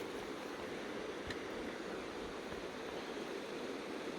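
Steady rush of a flowing mountain river, with one faint click about a second in.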